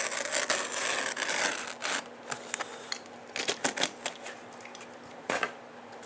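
Utility knife slicing through carpet along a metal nap-lock (bend-over) bar, a rasping cut lasting about two seconds. Then a run of light clicks and short scrapes as the cut carpet edge is handled.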